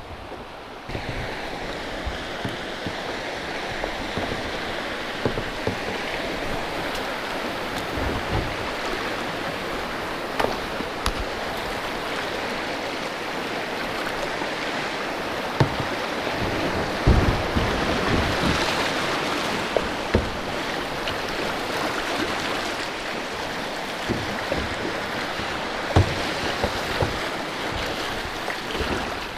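Rushing water of a river rapid heard from a kayak running through it: a steady wash of noise, swelling a little past the middle, with a few short knocks.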